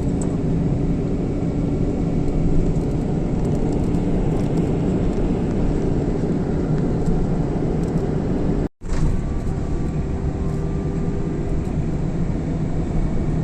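Steady engine and road rumble inside a moving tour bus. The sound cuts out for an instant about nine seconds in, then carries on.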